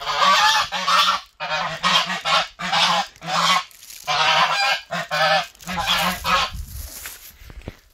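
White domestic geese honking loudly, about a dozen harsh calls in quick succession that stop about six and a half seconds in, leaving only a low rumble.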